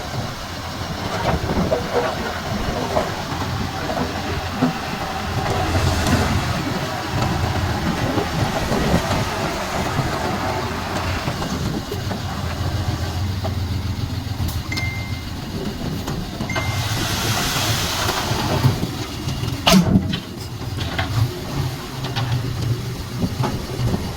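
Komatsu D31P crawler bulldozer at work, its diesel engine running steadily and its tracks clanking. Two short high beeps come about two-thirds through, then a brief hiss and a few sharp knocks.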